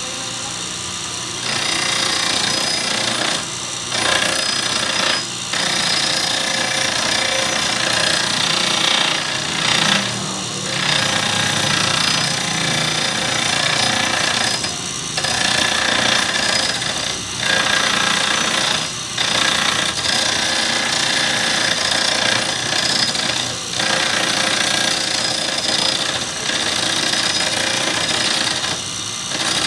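Grinding wheel of a homemade camshaft grinder grinding a camshaft lobe: a harsh, steady grinding rasp that starts about a second and a half in and breaks off briefly every few seconds, over the running hum of the grinder's motor.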